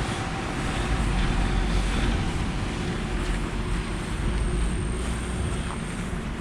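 Steady outdoor city noise: a low, even rumble of traffic and wind on the microphone, with a faint high whine for a couple of seconds in the middle.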